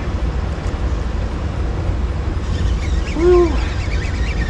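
Steady low rumble of wind and river water below the dam. About three seconds in comes one short hoot-like call that rises and falls in pitch.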